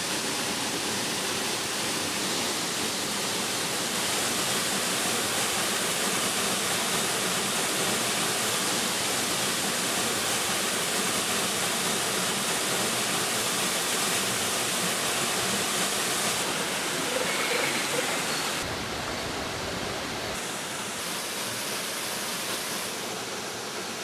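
Waterfall and mountain stream: a steady, even rush of falling water, shifting slightly in tone a few times in the second half.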